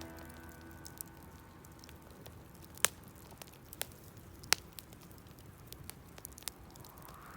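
Wood campfire crackling, with scattered sharp pops and snaps over a low hiss; the two loudest pops come about three and four and a half seconds in.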